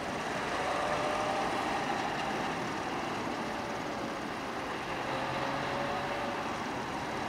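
Motor vehicle driving by: steady engine and tyre noise with a faint whine that sags slightly in pitch and recovers.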